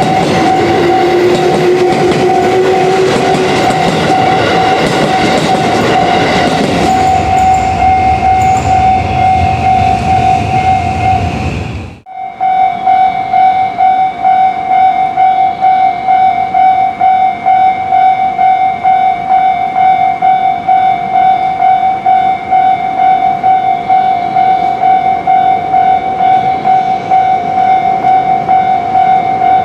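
A railway level crossing's warning bell ringing as a train passes, the train's running noise loud and a whine rising in the first few seconds. About twelve seconds in the train noise cuts off suddenly, leaving the crossing bell ringing on its own in an even pulsing rhythm.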